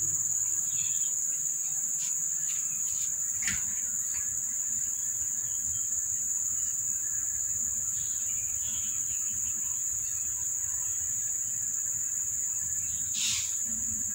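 Steady high-pitched drone of insects trilling, unbroken throughout. A sharp click about three and a half seconds in and a brief higher sound near the end.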